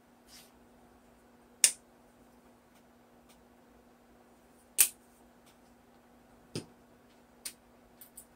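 Small plastic craft-paint bottles clicking and knocking as they are handled, picked up and set down on the table. There are a few sharp, separate clicks spread over several seconds, the loudest about halfway through, over a faint steady hum.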